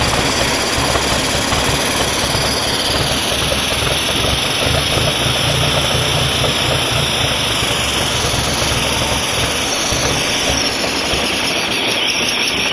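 Ford 641 Workmaster tractor's four-cylinder gasoline engine running steadily in neutral at low throttle on wood gas from a gasifier, with its air mixing valve being reopened after the engine flooded a little.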